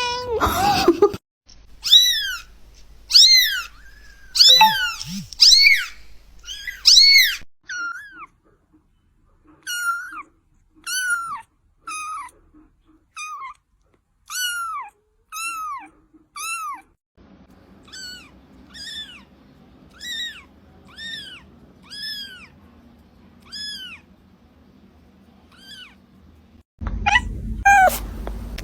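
Small kitten meowing over and over in short, high, arching calls, about one a second, growing weaker and more spaced out in the second half.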